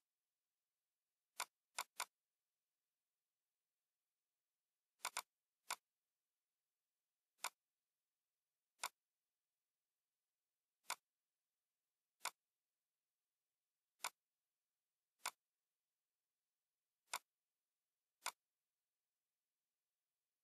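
Computer mouse clicking: about a dozen short, sharp single clicks and a few quick double clicks, spaced irregularly one to three seconds apart, with near silence between them.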